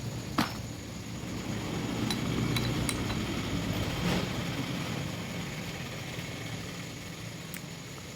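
Metal gearbox parts being handled as the gears are taken out of a tractor gearbox: a sharp metallic click about half a second in, then a few fainter clinks and knocks, over a low rumble.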